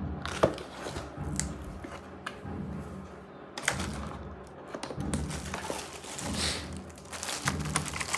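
Cardboard keyboard box being handled and opened: rustling and scraping of the carton with scattered taps and knocks, the sharpest about half a second in.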